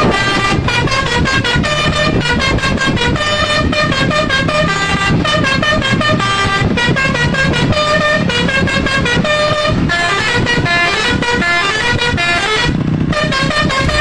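Tour bus's BASURI musical air horn playing a fast tune of stepped notes over the bus's running noise, with a short break near the end.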